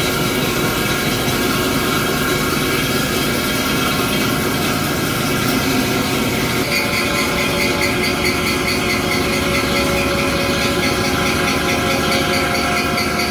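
CNC boring spindle running with its boring tool cutting the steel bore of a large film wheel's hub: a steady, loud machining noise with several steady tones. From about halfway through, a pulsing high-pitched cutting sound joins in as the tool bites harder into the steel.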